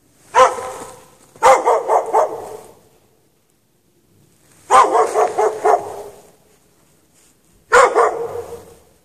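A dog barking in bouts: a single bark, then three runs of several quick barks each, every bark trailing off with an echo.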